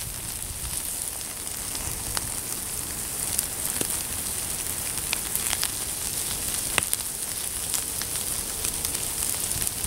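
Wood fire burning, with a steady hiss and scattered sharp pops and crackles from the burning logs.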